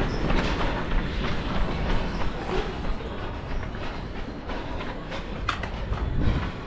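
A runner's footfalls and the rumble and rub of a head-mounted camera on the move, with a few sharp clicks about five and a half seconds in.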